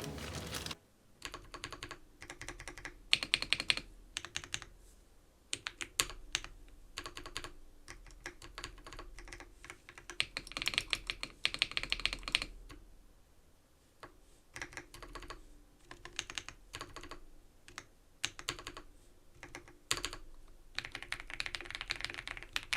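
Keystrokes on an ABKO AK100 mechanical keyboard with Baby Blue non-clicky tactile switches, pressed in quick runs of clicks with short pauses between, as its stabilized long keys are tested.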